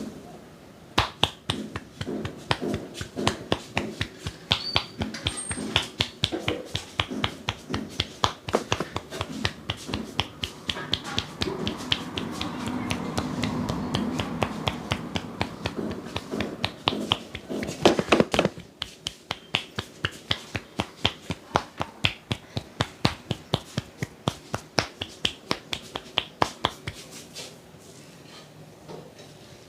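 Massage strokes from a barber's hands on the head and body: sharp slaps and finger snaps at about three a second, with a softer stretch of rubbing midway. The strokes stop near the end.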